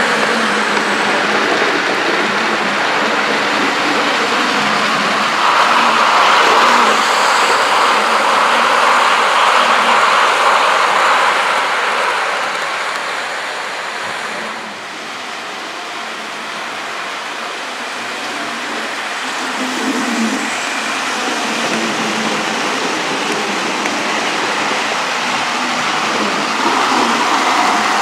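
Sound-fitted N gauge GWR Castle class model steam locomotive running with its train, its DCC sound decoder playing steam running sounds over the rumble of wheels on track. It is steady and hissing, louder for several seconds as the train passes, fading midway and building again.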